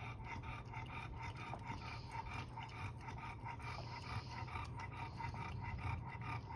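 A small dog lapping whipped cream from a paper cup, a quick, even run of wet licks at several per second.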